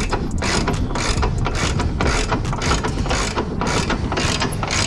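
Hand ratchet wrench clicking in quick, even back-and-forth strokes, about three a second, running a nut down onto a radius rod bolt.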